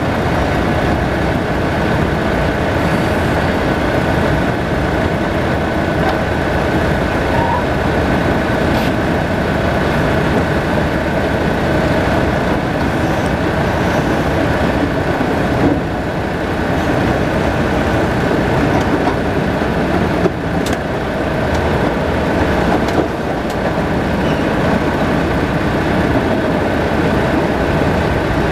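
Forklift engine running steadily close by as it works at the side of a flatbed lumber load, with a few brief knocks.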